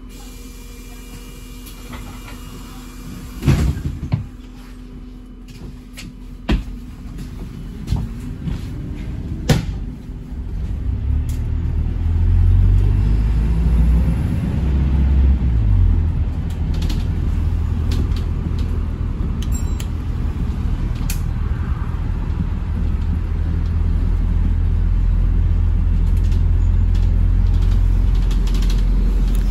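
Interior of an Arriva London hybrid bus standing still, with a few sharp knocks and rattles, then pulling away about ten seconds in: a low engine and drivetrain rumble builds and runs on steadily as the bus drives.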